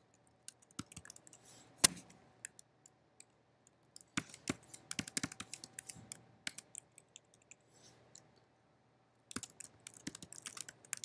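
Typing on a computer keyboard: quick runs of key clicks with a pause of a couple of seconds between them.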